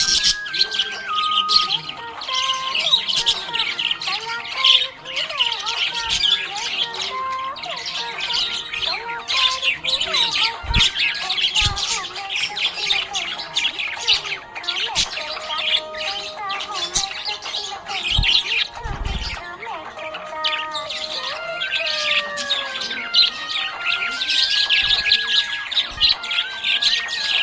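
Budgerigars chirping and chattering continuously in quick, high twitters, with a simple melody playing underneath.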